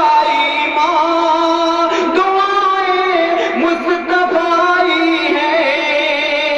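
A man singing lines of Urdu devotional poetry (a manqabat) in tarannum, the melodic style of recitation, with long held, wavering notes, amplified through a microphone.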